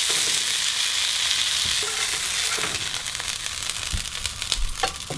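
Butter sizzling and foaming in a frying pan as it browns into a beurre noisette, moved about with a spatula. The sizzle fades gradually, and a few light clicks and knocks come near the end.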